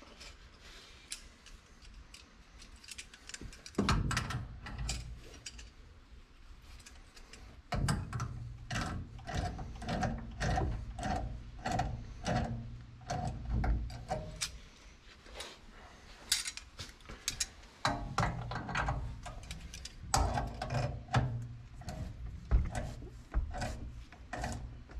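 Metal hand tool working the threaded gas pipe fitting at a water heater's gas control valve: runs of sharp metallic clicks and scrapes, about two or three a second, starting about four seconds in, with a lull past the middle before a second spell.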